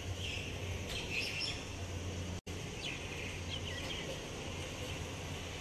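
Small birds chirping in short scattered calls over a steady low background hum, with a brief break in the sound about two and a half seconds in.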